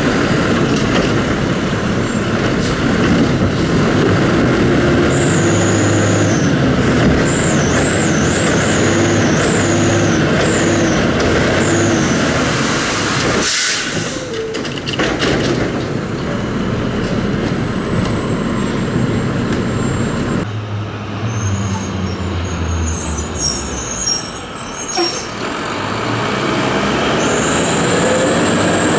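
Diesel engine of a Labrie Automizer automated side-loader garbage truck running and revving, with a high whine that wavers up and down at times. A short hiss comes about 13 seconds in, and the sound changes abruptly a couple of times.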